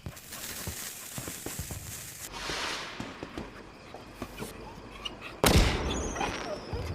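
Fireworks sound effects: hissing and crackling with scattered pops for about five seconds, then a sudden loud bang about five and a half seconds in, followed by a thin falling whistle.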